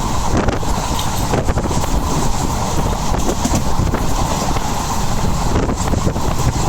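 Train running steadily, with a low rumble and wind buffeting the microphone.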